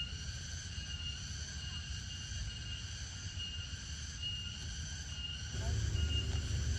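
Steady chorus of insects in a pine forest: several high droning tones, the clearest one pulsing about once a second, over a low rumble that grows louder about five and a half seconds in.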